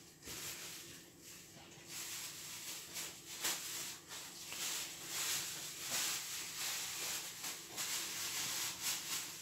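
Faint, irregular rustling and soft handling noises, made by hands placing pieces of brisket onto a pizza base.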